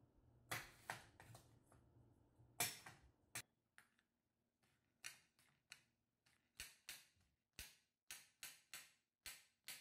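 Chef's knife chopping a cucumber on a glass cutting board: sharp clicks of the blade striking the glass. A few scattered strikes come first, then from about halfway in a steady run of chops, two to three a second.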